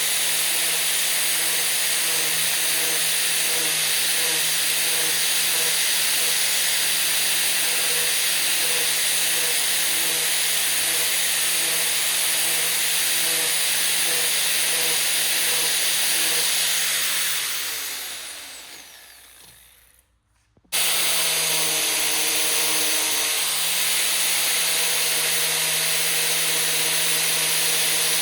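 Electric power tool motor running steadily with a high whine and a regular pulsing beneath it. About seventeen seconds in it is switched off and winds down in falling pitch to near silence, then runs again at full speed less than a second later.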